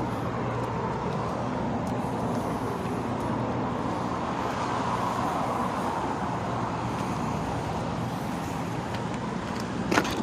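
Steady motor-vehicle noise: a low, even engine hum under a constant rush of road or traffic noise, swelling slightly in the middle. There is a short click at the very start and a sharp knock near the end.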